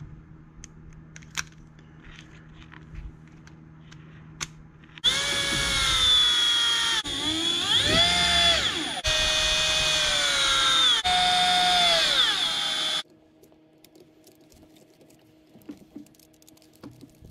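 Cordless electric screwdriver driving screws in four runs of about two seconds each, its motor whine shifting in pitch as each screw runs in, after a few light clicks of small parts being handled.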